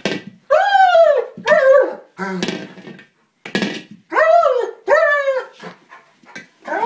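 German Shepherd giving a run of about five high-pitched whining yelps, each rising then falling in pitch, with rougher noisy yelps between. The dog is upset that it cannot puncture the small buoy it is biting at.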